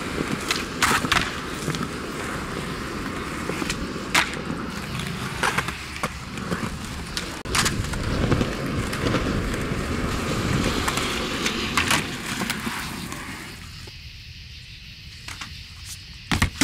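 Skateboard wheels rolling on smooth concrete, with several sharp clacks of the board popping and landing. The rolling dies away about three-quarters of the way through, and a couple of loud clacks come right at the end.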